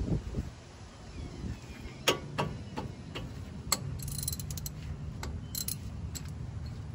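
Hand socket ratchet clicking as it is worked on a front brake caliper bolt: single sharp clicks from about two seconds in, with short quick runs of clicking around the middle and near the end.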